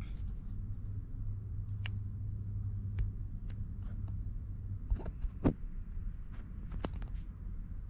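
Workshop background noise: a low steady hum with a scattering of short light clicks and knocks, the loudest close together about five and seven seconds in.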